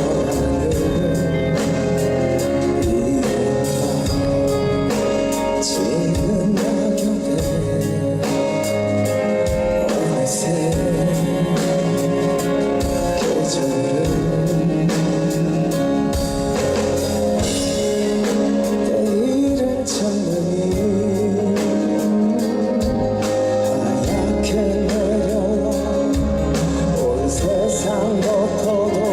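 Live band music with singing: a pop ballad performed on stage with drums and guitar.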